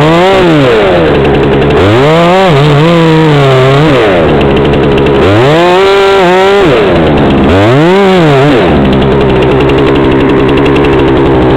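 Chainsaw revved up and let back down four times, held at full speed for about a second on the second and third revs, over a steady low engine drone.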